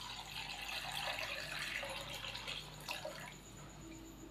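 Water poured from a glass into an aluminium karahi of raw chicken pieces, splashing as it fills the pan; the pouring stops about three seconds in.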